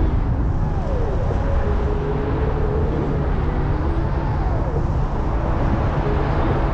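Airflow buffeting the camera microphone in paraglider flight, a steady loud rumble, with faint whistling tones that rise and fall over it.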